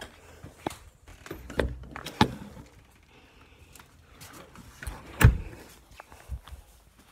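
Handling noise from a phone being carried and moved close to the body: a few scattered knocks and bumps, the loudest a sharp thump about five seconds in.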